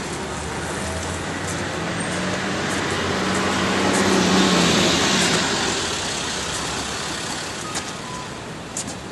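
City street traffic: cars passing on a busy road. The traffic noise swells as a vehicle passes close by, peaking about four to five seconds in with its engine hum, then fades back to a steady traffic wash.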